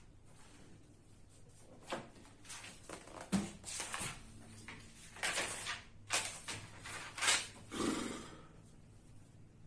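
Paper rustling as the pages of a spiral-bound textbook are flipped and handled: a series of short rustles, with a light knock about three and a half seconds in.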